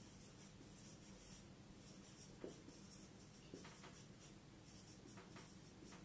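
Faint sound of a marker writing on a whiteboard: soft strokes of the felt tip against the board, a few of them standing out as brief scratches.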